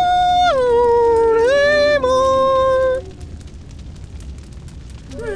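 A cartoon character's high voice holds long sung or wailed notes, dropping in pitch about half a second in, stepping back up near a second and a half, and cutting off suddenly about three seconds in. Faint crackling follows.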